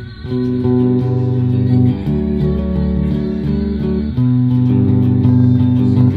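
Bass guitar strummed in sustained chords, with a brief break right at the start and chord changes about two seconds and again about four seconds in.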